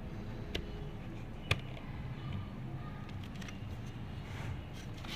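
A few sharp metal clicks and handling noise from needle-nose pliers working the blade of a Braun grinder, trying to turn a motor shaft held fast by a seized bushing. The loudest click comes about a second and a half in.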